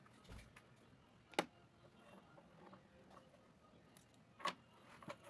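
A few faint clicks and knocks as painting supplies, a plastic paint palette among them, are handled on a wooden desk, with one sharp click about a second and a half in and another a second before the end.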